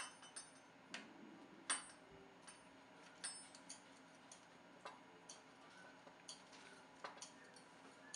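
Faint, irregular light metallic clicks and ticks of a surgical instrument and stainless steel wires against a metal arch bar on a plastic jaw model as wire loops are placed and tightened; the sharpest click comes a little under two seconds in.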